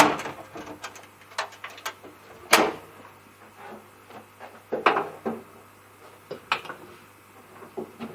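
Hard knocks, clunks and clatters of a 2-foot four-lamp propagation light fitting being handled and set in place inside a grow tent. The loudest knocks come at the start, about two and a half seconds in, and near five seconds.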